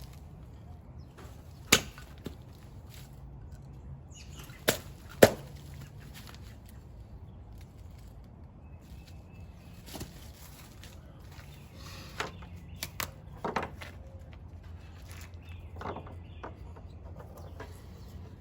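Sharp cracks of tulip poplar sticks snapping, three loud ones in the first five or so seconds, the last the loudest, then lighter wooden knocks and snaps as the pieces are handled and laid on a small fire.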